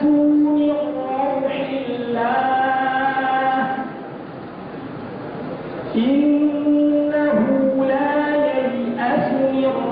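A male reciter chanting Qur'an verses in a melodic tajwid style, holding long, wavering notes. He pauses for breath about four seconds in and picks up again with a rising note about two seconds later.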